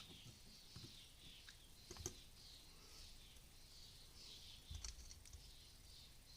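Quiet bench work: a few light clicks and taps as small carburetor parts are handled, with a brief low knock a little before the end. A faint, high chirping repeats about twice a second in the background.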